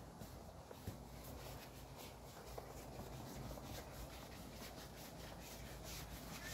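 Faint rustling and rubbing of objects being handled and shifted about, with a couple of light knocks.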